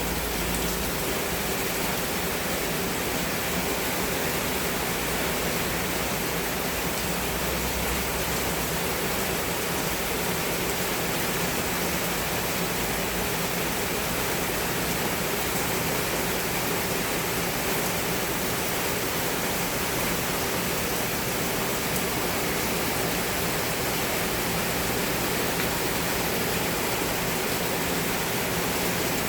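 Heavy rain pouring down steadily: a dense, even hiss with no letup.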